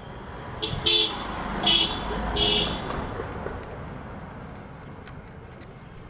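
Three short vehicle-horn toots in quick succession, over the low rumble of passing traffic. Later come faint clicks of a screwdriver backing out the small screws of a motorcycle's brake fluid reservoir cap.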